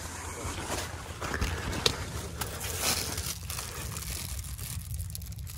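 Irregular rustling and crinkling of large cucumber leaves being brushed and turned over by hand, over a low steady rumble.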